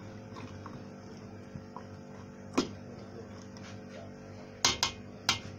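Kitchen utensils knocking against a metal cooking pot of coconut-milk stew: one sharp clink about halfway through, then three quick clinks near the end, over a steady low hum.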